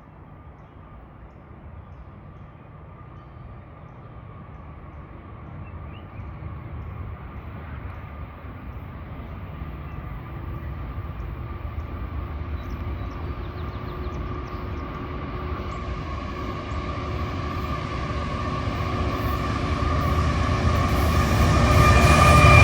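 A train approaching, its low rumble and steady whining tones growing steadily louder throughout.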